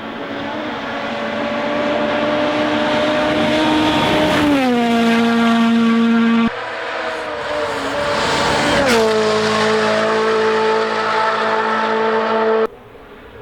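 WRC Rally1 cars' 1.6-litre turbocharged four-cylinder engines at full throttle, in two separate passes. Each engine note climbs as the car comes on, then drops sharply as it goes by, about four and a half and nine seconds in.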